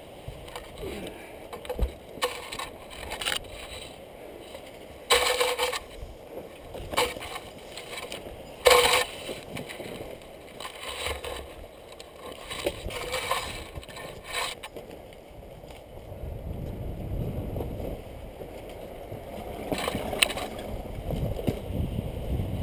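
Pine branches brushing and rustling against the camera in several short bursts, the loudest about five and nine seconds in, with a low rumble on the microphone in the last few seconds.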